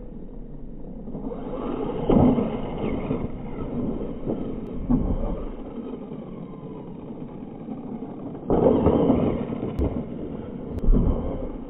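Radio-controlled dirt bike running over jumps on a dirt track, its motor whining and revving, with a faint falling whine in the middle. Louder surges of noise come about two seconds in, from about eight and a half seconds in, and near the end.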